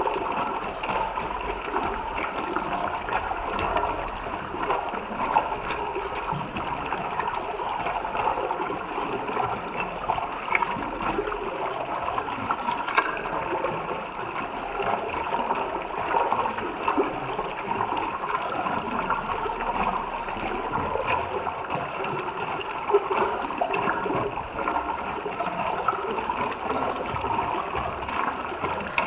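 Running water bubbling and gurgling steadily, like a small stream, with many small splashes.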